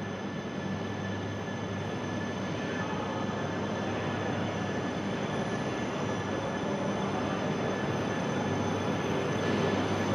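JR East E3 series shinkansen pulling into the station platform at low speed, its running noise growing gradually louder as it approaches.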